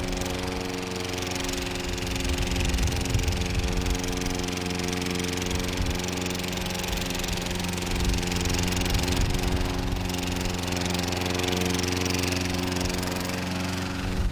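Walk-behind rotary lawn mower's small engine running steadily at an even speed while cutting grass.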